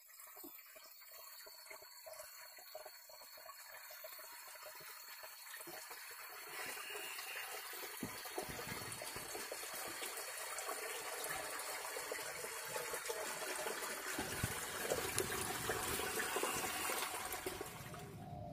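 Water running and splashing into a small concrete basin, a steady rushing that grows louder partway through. A thin steady high tone sits over it.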